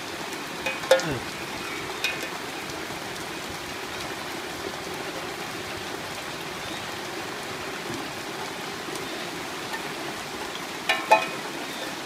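Steady hiss of rain and running water on wet ground. A few brief, louder sounds break through about a second in, at two seconds and near the end.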